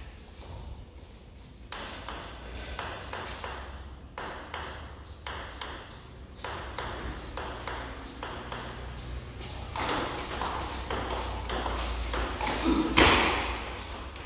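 Table tennis rally: the ball clicks back and forth between the paddles and the table at about two to three hits a second, with a louder burst about a second before the end.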